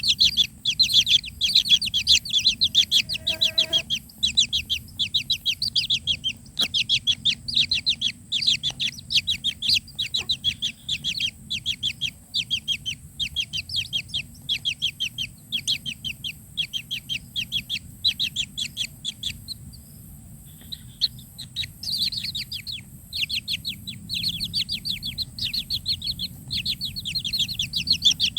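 Kingfisher nestlings begging: rapid, high, repeated chirps, several a second, pausing for a couple of seconds about two-thirds of the way through, then resuming.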